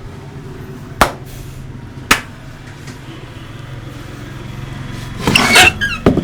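Barber's hands slapping during a head massage: two sharp smacks about a second apart, then a short, louder flurry of slapping and rubbing near the end, over a steady low hum.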